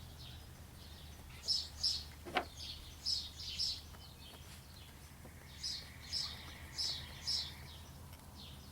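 Small birds chirping, short high calls in quick groups of two or three that repeat on and off, with a single sharp click about two and a half seconds in.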